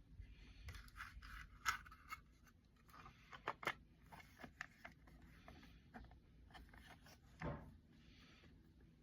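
Faint handling noises of cassette tapes and their packaging: scraping and rustling with scattered small clicks, a cluster of sharper clicks about three and a half seconds in, and a soft knock near the end.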